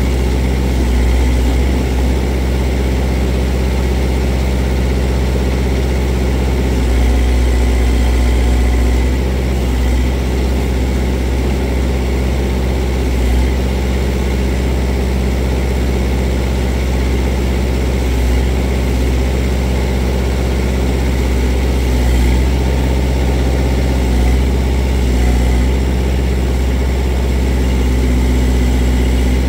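Kubota L48 tractor-loader-backhoe's diesel engine running steadily and loud while the backhoe is worked, its level swelling slightly a few times.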